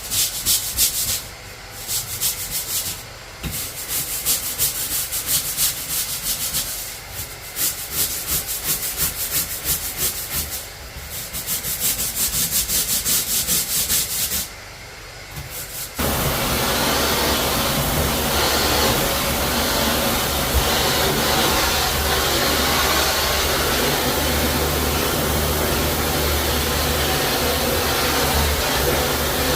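Rapid back-and-forth scrubbing strokes on a tile floor for about sixteen seconds, stopping in short pauses, then a steady motor starts abruptly and runs with a low hum, like a wet vacuum or floor machine.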